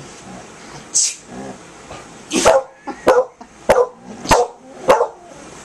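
A pet dog making a single short, sharp huff about a second in, then a quick run of five short, sharp bursts about half a second apart.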